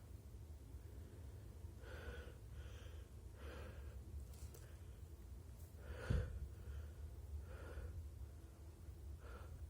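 A person's faint, catching breaths and gasps, about eight short irregular intakes, the build-up before a sneeze; one sharper, louder catch comes about six seconds in.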